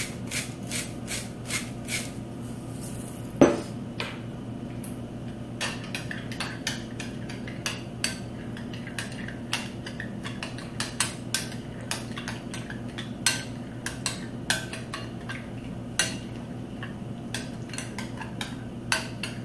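A utensil stirring a creamy dressing in a bowl, clinking against the side of the bowl in an uneven run of light taps, roughly two a second. There is one louder clank about three and a half seconds in.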